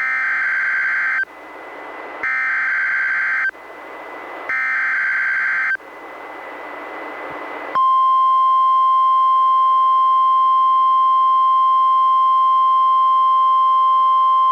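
NOAA Weather Radio emergency alert: three SAME digital header bursts about a second long each, with receiver hiss in the gaps, then about eight seconds in the steady 1050 Hz warning alarm tone starts. Together they signal an incoming Special Marine Warning.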